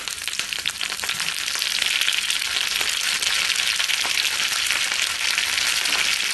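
Curry leaves, dried red chillies, mustard and fenugreek seeds sizzling in hot coconut oil in a small pan, with a dense crackle of mustard seeds popping. This is the tempering stage, with the oil hot enough to splutter the mustard. The sizzle grows louder over the first two seconds, then holds steady.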